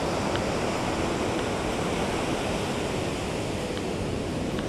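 Ocean surf washing steadily on the beach: an even, unbroken rush of breaking waves.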